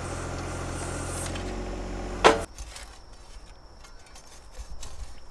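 John Deere 1025R compact tractor's three-cylinder diesel engine running steadily, then shut off about two and a half seconds in, just after a single sharp clunk. Afterwards only faint scattered ticks and scrapes remain.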